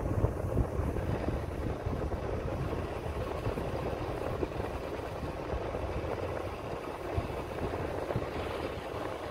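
Motorcycle riding at a steady pace: engine running under wind and road noise on the microphone.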